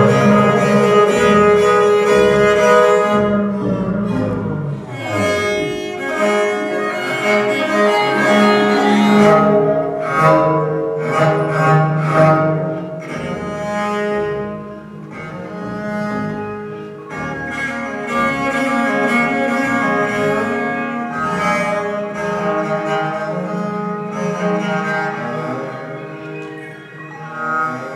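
Viola da gamba (viol) played with a bow, layered sustained notes over an electronic part. About five seconds in, a falling glide sweeps down, and clusters of short, sharp note attacks come around the middle.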